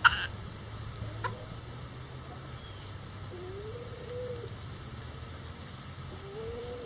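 Bantam chickens giving two soft, drawn-out low calls that rise slightly and level off, the second near the end. A brief sharp sound at the very start is the loudest thing heard.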